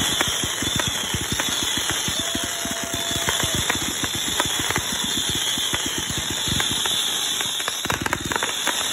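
Consumer fireworks cake firing shots in rapid succession, about ten low pops a second, with a heavier volley near the end.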